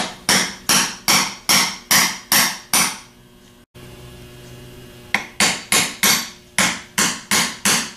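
Hammer blows on a socket used as a driver, knocking the old bronze bushing out of a Delco 37MT starter's intermediate housing. Sharp ringing metal strikes come about two and a half a second in a run of about eight, then a pause of about two seconds, then another run of about eight.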